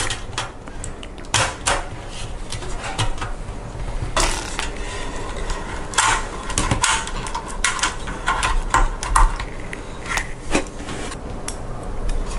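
Metal frame of a Silverstone SG13 mini-ITX PC case being handled as a cabled motherboard is fitted into it: irregular knocks, clicks and clinks of metal and plastic, the sharpest about four, six and nine seconds in.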